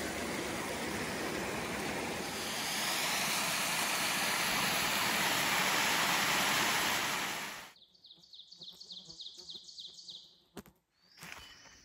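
Water running over rocks in a small woodland stream, then splashing down a small waterfall, a steady rush that grows louder about three seconds in. The water cuts off abruptly near the end, leaving quiet woods where a bird chirps repeatedly and a couple of sharp clicks follow.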